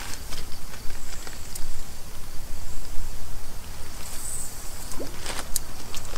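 A spinning rod and reel being cast, with a few small clicks and snaps from the reel, over a steady low rumble.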